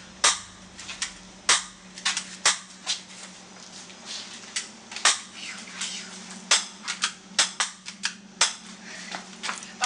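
Toy pistol firing a long, irregular string of sharp gunshot-like cracks, about two to three a second, over a steady low machinery hum.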